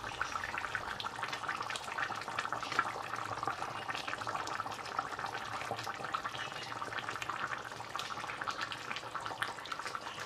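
Pots simmering on a stovetop: a steady bubbling with many small pops of liquid cooking, from the pot roast's sauce and the pan of boiled vegetables.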